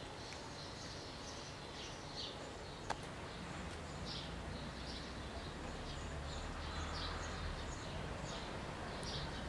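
Outdoor ambience of birds chirping, short high chirps every second or so over a low steady background rumble, with a single sharp click about three seconds in.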